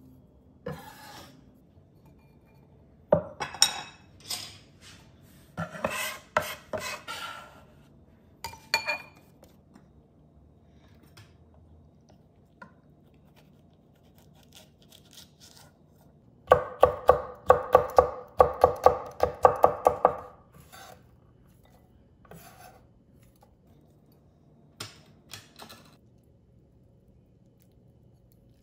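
Chef's knife chopping on a wooden cutting board: scattered strokes and scraping of chopped herbs in the first ten seconds, then, as the loudest part, a run of quick chops at about four a second for some four seconds while a green chili is chopped, and a few light taps after.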